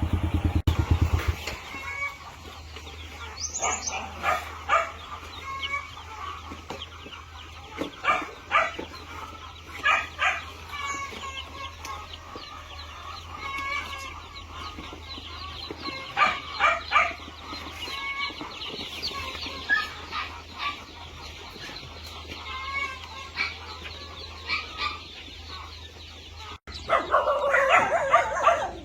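Domestic chickens clucking and calling on and off, short calls scattered across several seconds over a faint steady low hum, with a louder stretch of calling near the end.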